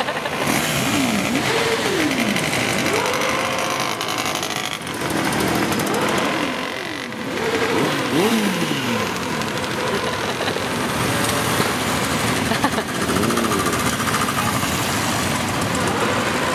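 A steady stream of motorcycles and scooters riding past at low speed, their engines dropping in pitch as each one goes by, with occasional revving.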